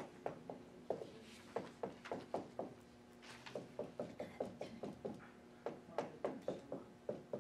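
Dry-erase marker writing on a whiteboard: a quick, irregular run of small taps and knocks on the board as letters are formed, with a few brief scratchy marker strokes.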